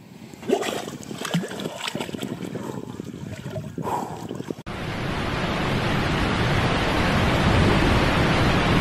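Water splashing and sloshing among broken ice fragments as a swimmer surfaces through a hole in lake ice. About halfway through, an abrupt cut to a steady, loud, even rush of falling water from a waterfall.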